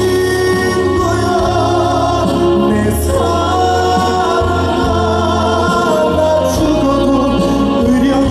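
Live band music with sustained sung notes, part of a trot song performance.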